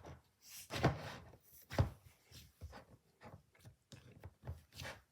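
Cookie dough slime being squished and stretched by hand, giving irregular short squishing and popping sounds, the loudest about one and two seconds in.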